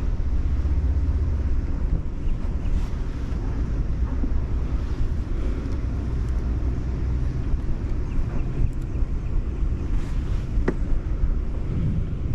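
Wind buffeting the microphone with a steady low rumble and hiss, with faint water sounds around the kayak and one sharp click about ten seconds in.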